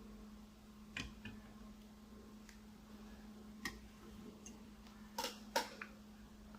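A few light, separate clicks and taps of small die-cast model parts being handled and set in place, over a faint steady low hum.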